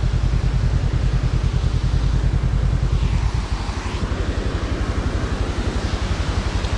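Motorcycle engine running while riding, with a fast steady firing pulse. About three seconds in the note drops and softens, as when the throttle is eased off.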